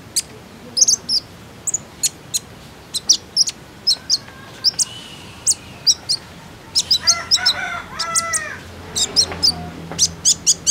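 Van Hasselt's sunbird (kolibri ninja) calling in quick, high, thin chirps, singly and in short runs, all through. About seven seconds in, a lower, drawn-out call sounds under the chirps.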